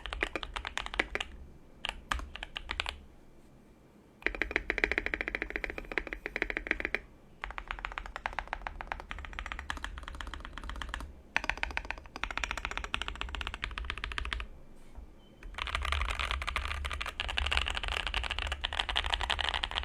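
Keychron Q2 mechanical keyboard, a gasket-mount board in a solid aluminium case, being typed on quickly in several runs of rapid keystrokes, with two short pauses: one about three seconds in and one near fifteen seconds in.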